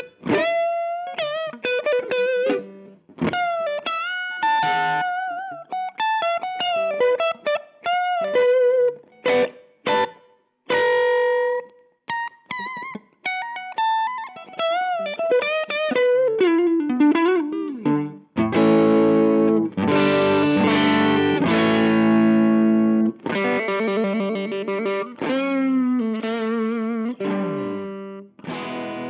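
Electric guitar played through a Bright Onion Soap Boost clean boost pedal and amp. It plays single-note lead lines with string bends and vibrato, then switches to sustained, ringing chords about 18 seconds in.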